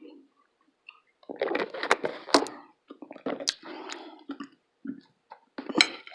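Close-miked chewing with wet mouth smacks and sharp clicks, coming in three bursts of about a second each with short pauses between.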